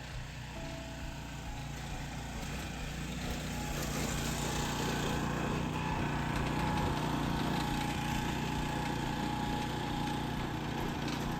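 Small engine of a lawn aerator running steadily, growing louder over the first few seconds and then holding even.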